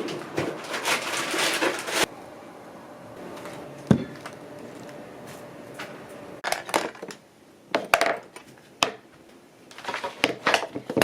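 Objects being handled: a noisy rustle for about the first two seconds, a single sharp knock about four seconds in, then a series of light clicks and taps near the end.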